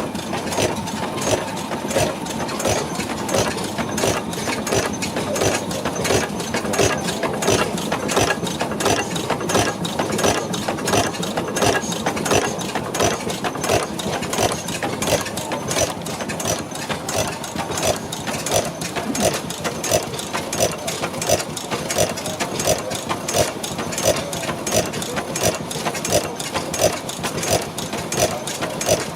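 Horizontal, low-speed Behrendt stationary gas engine running steadily, with an even, regular beat throughout.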